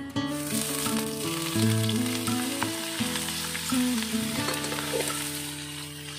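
Tagudug shellfish sizzling in hot oil in a wok as they are stirred with a spatula. The sizzle surges just after the start and slowly eases off, over background music.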